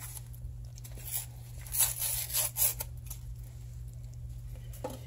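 A spoon stirring a crock pot full of thick chili: a few short scraping, wet stirring strokes, the loudest about two seconds in, over a steady low hum.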